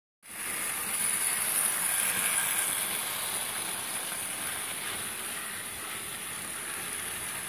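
Model train of container wagons and passenger coaches rolling past on the track: a steady whirring rattle of small wheels on rail, loudest in the first few seconds and easing slightly as the coaches go by.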